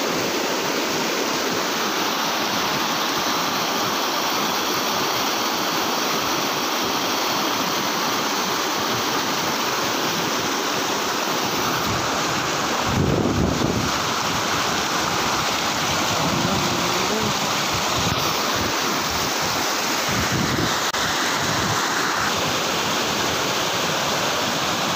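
Swollen, muddy stream rushing and splashing over rocks at a small waterfall, steady and loud, briefly louder about halfway through.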